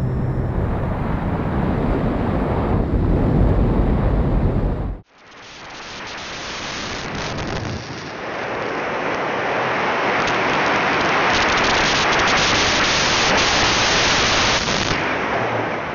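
Wind rush and propeller noise buffeting an onboard camera's microphone on an electric E-flite Air Tractor RC plane in flight. About five seconds in the sound cuts off abruptly and another onboard camera's track starts, with the rush swelling back up and then holding steady.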